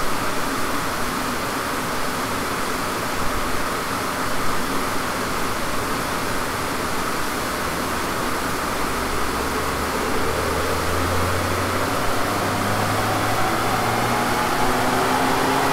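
A SEAT Leon's engine on a rolling-road dyno during a power sweep, over a steady fan-like rush. From about nine seconds in the engine pulls hard under full load, its note climbing steadily in pitch as road speed rises.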